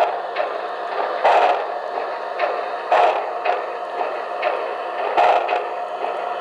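HO-scale Santa Fe 4-6-4 Northern model's DCC sound system playing recorded steam-locomotive sound through its twin brass speakers as the engine moves slowly: a steady hiss, with a louder chuff every second or two and softer ones between.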